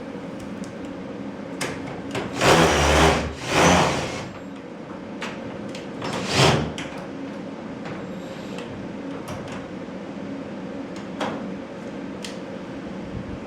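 Metal garage door parts being worked during installation: three loud scraping slides close together in the first half, then scattered sharp clicks and taps, over a steady machine hum.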